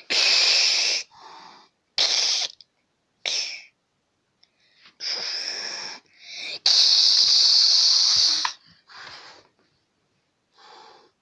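A frightened cat hissing in about eight bursts, some short and some held for nearly two seconds, with silent pauses between them.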